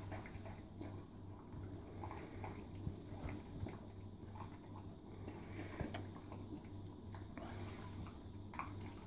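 A dog and a cat eating meat chunks and kibble from the same steel bowl: faint chewing with scattered small clicks, over a low steady hum.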